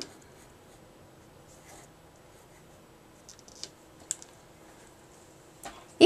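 Marker writing on the drawing board: a few faint, short scratching strokes and light taps with quiet gaps between.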